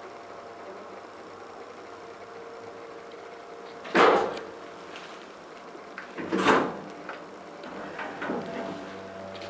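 Doors of an old KONE hydraulic elevator moving and closing: two loud half-second door sounds, about four and six and a half seconds in, and smaller knocks near the end, over a steady low hum.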